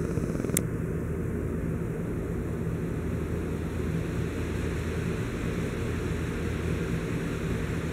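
Steady low mechanical hum with a hiss over it, with a single sharp click about half a second in.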